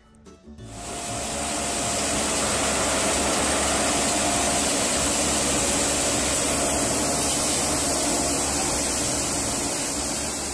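Feed mill machinery running at the mixer station, with the blower-driven dust collection and mixer going at once: a loud, steady rushing hiss with a faint low hum. It fades in over the first second and eases off near the end.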